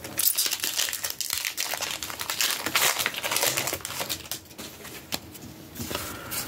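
Crinkling of a foil Pokémon booster pack wrapper being handled and crumpled, a dense crackle that is loudest for the first four seconds and lighter after.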